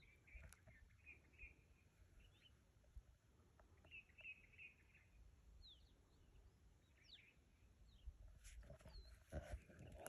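Small birds chirping faintly in short twittering clusters, with a few quick sweeping notes. A few soft knocks come near the end.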